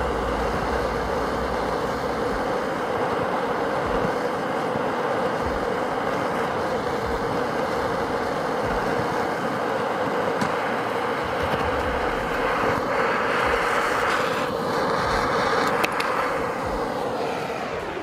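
Two handheld gas blowtorches hissing steadily as their flames play on a steel padlock. A couple of sharp clicks come near the end, and then the hiss dies away.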